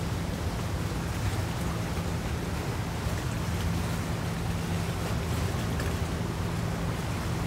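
A large container ship passing close by: a steady low drone from the ship over the continuous rushing hiss of its bow wave breaking along the hull.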